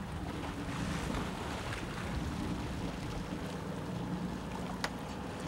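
Sportfishing boat's engine running steadily at low speed, with wind on the microphone and sea water rushing along the hull. A single sharp click near the end.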